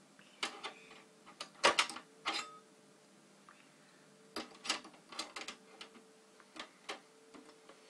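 Irregular sharp clicks and metallic taps from screwing the PCI slot cover back onto a desktop PC's metal case with a screwdriver, the loudest cluster just under two seconds in.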